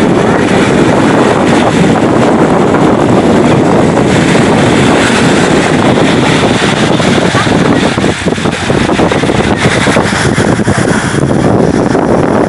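Wind blowing across the camcorder's microphone on a beach, a loud, steady rushing that dips briefly about eight seconds in, with small waves washing onto the sand.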